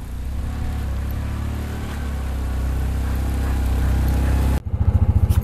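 Engine of a tracked side-by-side UTV running as it drives through deep snow, a steady low hum growing louder as it approaches. Near the end the sound cuts abruptly to a louder, fast, even pulsing.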